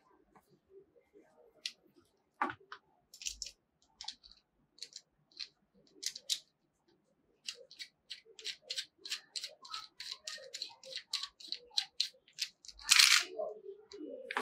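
Plastic parts of a chest-mount harness and its phone clamp being handled: scattered sharp clicks and taps, then a quick run of small clicks in the second half, with a louder scrape near the end.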